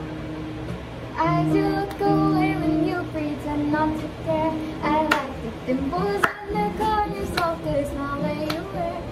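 A young woman singing a pop ballad into a microphone over an instrumental backing track; the backing holds steady chords at first and her singing comes in about a second in.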